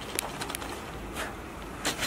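A few light, scattered clicks and knocks from handling and moving about, over low room noise.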